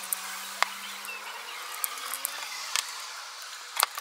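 A few sharp clicks and taps from hands working on small parts, over a steady high hiss, with the loudest click near the end.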